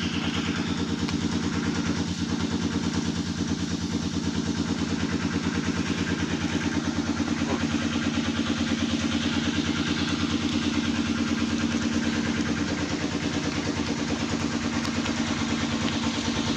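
An engine idling steadily, a continuous hum with a rapid, even beat.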